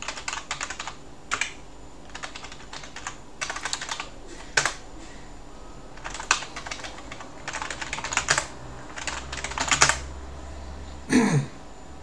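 Typing on a computer keyboard in irregular bursts of keystrokes, with pauses between them. About eleven seconds in comes one brief, louder sound.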